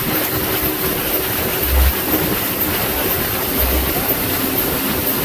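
Motor water taxi running across the sea, a steady rush of engine, wind and water with a low thud of the hull on the swell about every two seconds.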